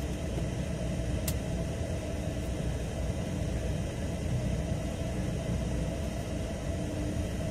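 Semi-truck's diesel engine running at low speed as the truck creeps onto the ferry, a steady low rumble, with one brief click about a second in.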